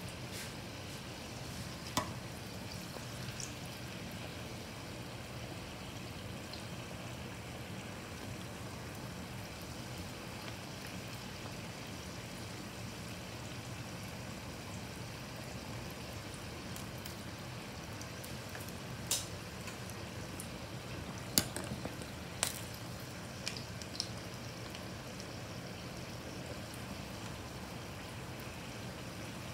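Samosas deep-frying in a pot of hot oil: a steady sizzle. A handful of sharp clicks stand out over it, one early and a cluster about two-thirds of the way through.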